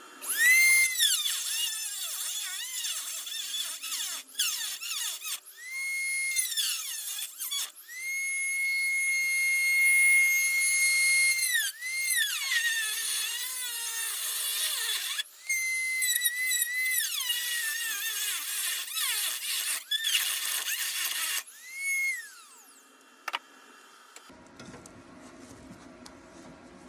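Small electric rotary tool (a Chicago Electric Dremel-type) cutting and grinding sheet metal: a loud high-pitched whine that spins up and winds down in about six runs of one to six seconds. It stops a little over 22 seconds in, leaving only a faint hum.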